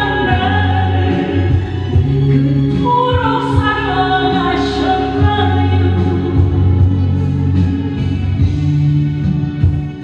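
A woman sings a Korean gospel song through a handheld microphone over a recorded backing track with a steady bass line. Her sung line is plainest in the first half, and the accompaniment carries on under it.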